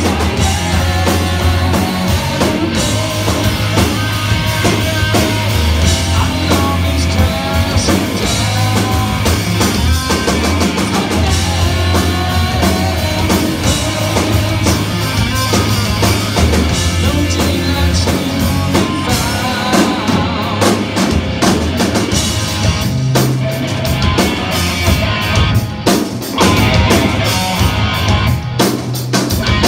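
Live rock band playing: electric guitar over electric bass and a drum kit, loud and continuous.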